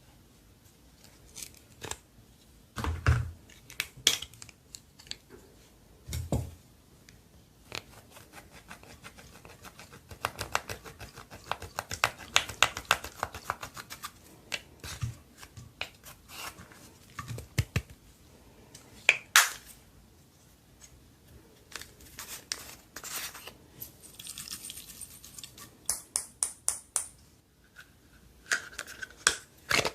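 Slime being mixed and squished by hand: irregular sticky clicks, crackles and pops, with a dense run of crackling partway through and a couple of dull thumps early on.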